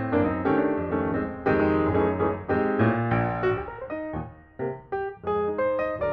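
Background piano music, a steady stream of notes with a brief lull about four seconds in.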